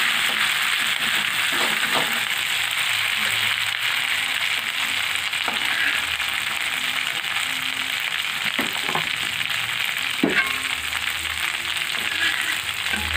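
Chopped kencur, shallots, garlic and chilli frying in hot oil in a wok, with a steady sizzle; a metal spatula stirs them, scraping and knocking against the pan a few times.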